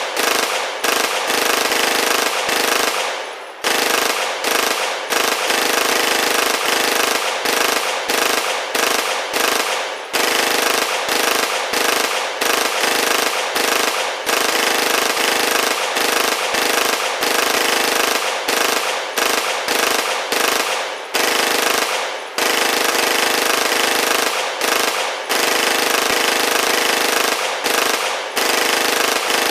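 Rapid automatic-gunfire rattle, MAC-11 style, running almost without pause, with brief breaks about once or twice a second.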